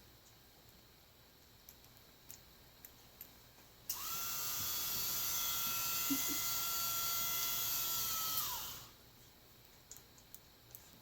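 A small handheld power tool's motor whirring at high speed for about five seconds, starting suddenly and falling in pitch as it spins down at the end. Light handling clicks come before and after.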